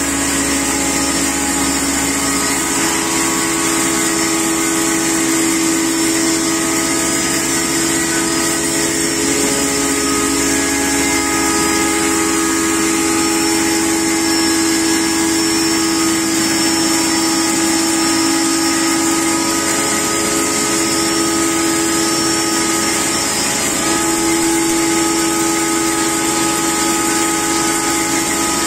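Double-stage blower-type pulveriser grinding maize, its electric motor driving the mill and blower through V-belts, running with a loud, steady whine.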